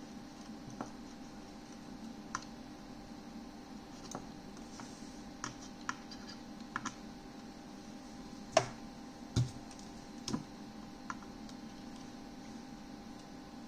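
Scattered light clicks and taps, with three louder knocks about halfway through, over a steady hum.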